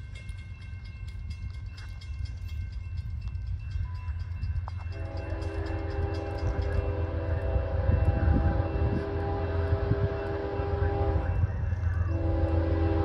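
An approaching train's locomotive air horn blows a long chord of several tones, starting about five seconds in. It breaks off for a moment near the end, then sounds again over a deep rumble that keeps getting louder.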